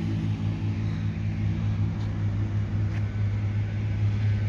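A steady low mechanical hum, like a motor or engine running at constant speed, with a few faint clicks.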